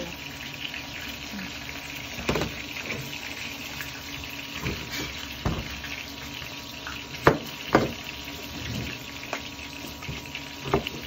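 Kitchen background: a steady frying hiss with about half a dozen sharp knocks scattered through it, the loudest about seven seconds in.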